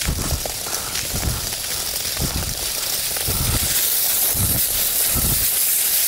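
Wooden touring skis sliding over a snowy ski track with a steady hiss that grows a little louder in the second half, with dull low thumps every second or so.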